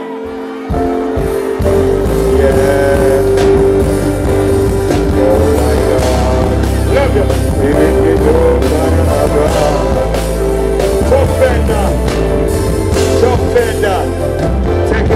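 Live reggae band playing: bass and drums come in under a second in beneath a held keyboard chord, with short snatches of vocals over the top.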